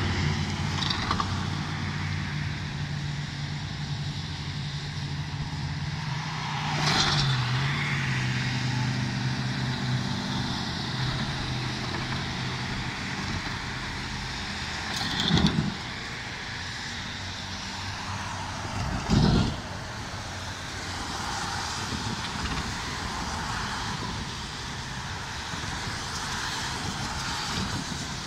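Road traffic on a wet road: cars swish past about 7, 15 and 19 seconds in, over a low engine hum that fades after about ten seconds.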